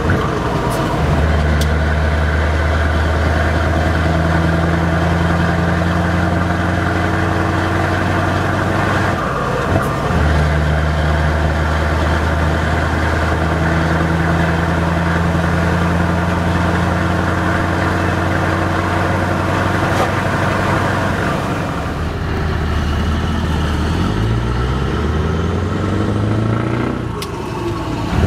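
Scania 164L 580's V8 diesel with open exhaust pipes, heard from inside the cab, pulling steadily at road speed. The engine note breaks briefly about ten seconds in. Near the end the note drops and then climbs in several short rising sweeps.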